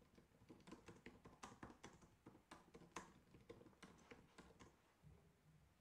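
Faint typing on a computer keyboard: an irregular run of quick key clicks, easing off near the end.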